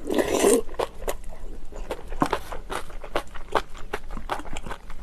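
Close-miked eating: a person chewing and crunching food, with many quick sharp clicks and crackles from the mouth, after a louder noisy burst in the first half second.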